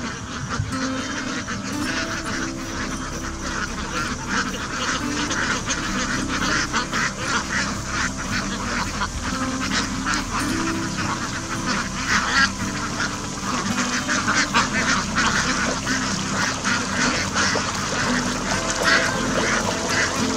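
A large flock of domestic ducks quacking continuously, many birds calling over one another at once.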